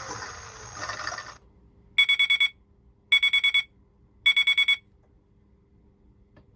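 Theo Klein Miele toy washing machine's electronic sound effects: the spin-cycle sound stops about a second in, then the end-of-cycle tone plays as three short bursts of rapid beeping, about a second apart.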